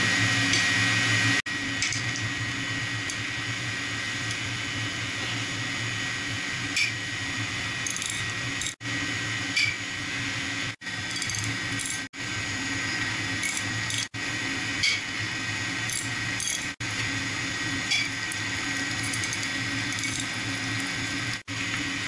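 Steady hum and hiss of a running circulating pump and the water in its pipework, with water trickling from a drained pump strainer housing and a few light metallic clicks of a wrench on the strainer cover bolts. The sound drops out briefly several times.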